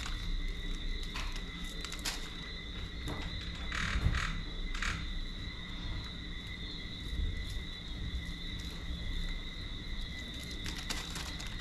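Knife cutting and scraping the charred skin off a roasted breadfruit: scattered light scrapes, cracks and crinkles of the skin and the plastic bag beneath. A steady high-pitched whine runs underneath.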